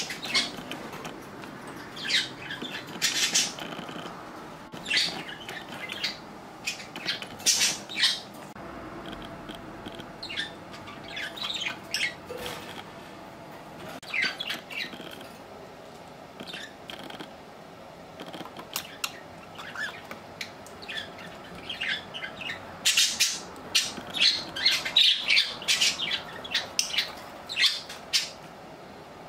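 Budgerigars chirping and squawking in short, scattered calls, with a dense flurry of calls near the end.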